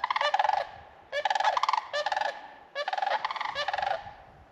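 A pair of sandhill cranes calling: loud, rattling bugle calls in three bouts, each about a second long, with short pauses between them.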